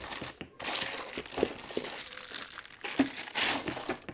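Plastic packaging crinkling and rustling as it is handled and unwrapped, with small crackles and a louder rustle about three and a half seconds in.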